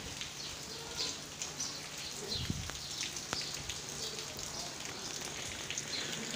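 Rain pattering and dripping steadily on a wet street, with many small scattered high ticks, and a soft low thump about two and a half seconds in.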